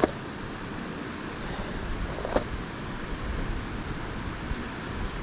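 Steady rush of fast-moving creek water, with two sharp clicks, one right at the start and one about two and a half seconds in.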